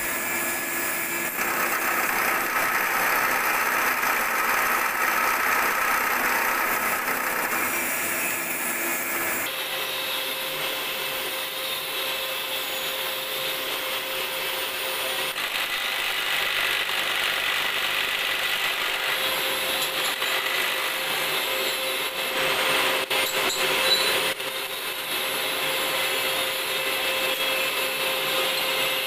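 Vertical milling machine's cutter cutting into a metal hexagon nut held in a vise: a steady cutting and machine-running noise with a few level tones, changing in character about ten seconds in, with a few sharp knocks near the end.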